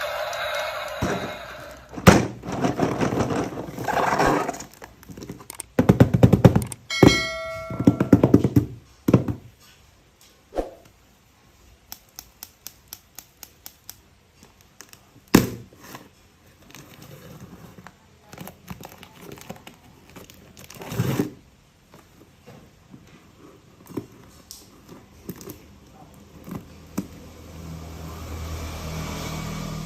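Plastic toy train parts and packaging being handled during unboxing: rustling, clicks and thunks. A run of small even ticks comes in the middle, and a steady low hum starts near the end.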